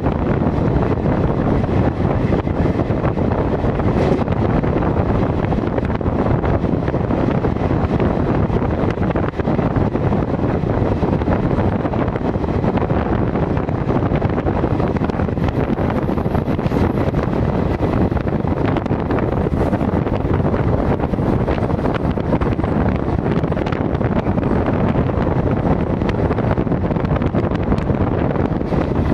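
Steady rumble and rush of a moving train heard from its open door or window, with wind buffeting the microphone.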